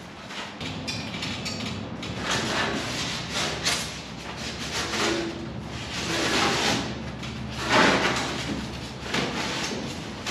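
A foil-faced rigid foam insulation board scraping and rustling as it is handled and pushed up into a metal building's steel roof framing from a ladder. It comes as a string of uneven scraping swells, the loudest about three-quarters of the way through.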